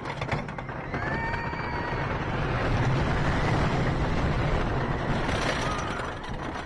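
Wooden roller coaster train rumbling down its first drop, the noise of the wheels on the track and the rushing air building quickly to a peak mid-way and easing slightly as the train climbs the next hill.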